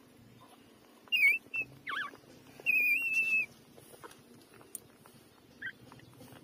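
Newborn puppies squeaking and whining in short, high-pitched, wavering cries, about five of them. The longest is a drawn-out squeal about three seconds in, and one brief squeak comes near the end.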